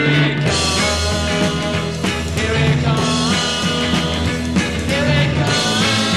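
Rock music playing.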